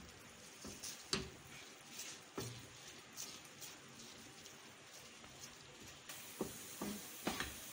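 A kitchen utensil stirring a thick, doughy milk-powder barfi mixture in a nonstick frying pan, making soft, irregular scrapes and taps against the pan. The taps come faster and louder near the end. The mixture is almost set and is leaving the sides of the pan.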